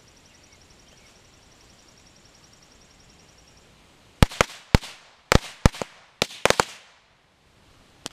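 Small ground firework lit with a lighter wand: a faint fuse hiss, then about ten sharp bangs in quick, irregular succession over two and a half seconds.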